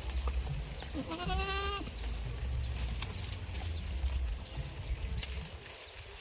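A goat bleating once, about a second in: a single short call with a wavering pitch.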